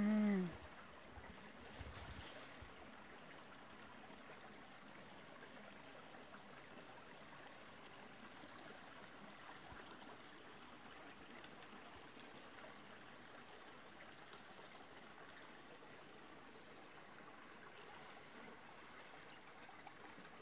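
Faint, steady outdoor hiss with a thin steady high tone above it, after a brief hummed voice right at the start and a soft bump about two seconds in.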